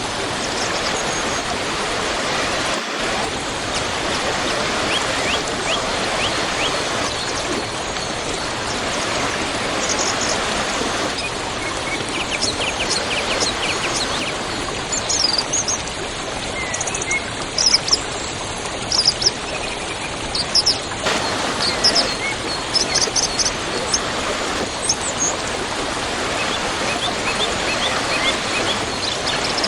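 Waterfall rushing steadily, with birds chirping high above the water through the middle stretch.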